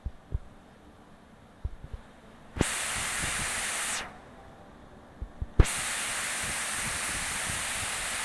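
Heavy rain as a loud, even hiss that cuts in sharply about two and a half seconds in, drops out at four seconds and comes back about five and a half seconds in, with a few soft knocks before it.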